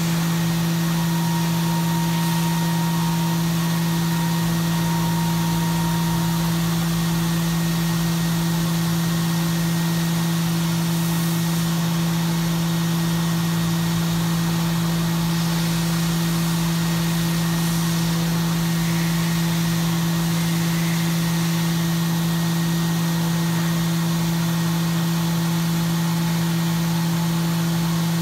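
CNC milling machine running steadily while machining aluminium: a constant spindle hum over an even hiss, with no change in speed.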